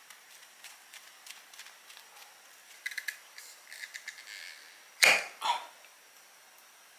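Glass jar of tomato sauce being opened by hand: small clicks and scrapes as the metal lid is twisted, then two louder sharp knocks about five seconds in.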